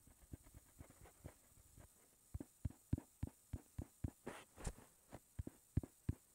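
Faint, quick taps on a tablet touchscreen, heard as soft low thuds. They are sparse at first, then come about three or four a second from about two seconds in, with a brief swish of a stroke across the glass near the middle.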